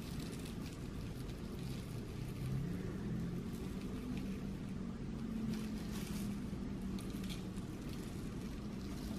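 Real coal granules sprinkled from a plastic bag, pattering lightly onto glued card, with the bag rustling in the hand. Under it runs a steady low hum that swells a little in the middle.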